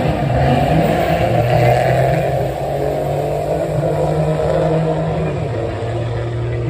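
Drag-racing cars' engines running loudly, a steady low drone that eases off slightly about halfway through.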